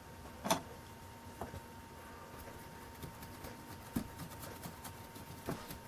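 Quiet stained-glass soldering work: a few light clicks and knocks, the sharpest about half a second in, with faint quick crackling ticks through the second half, over a thin steady whine.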